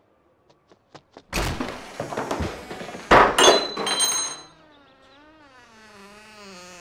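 An arched wooden front door with glass panes is unlatched with a few small clicks, pulled open with rattling and knocks, and bangs loudly about three seconds in with a brief ringing; it then gives a long wavering creak as it swings back shut.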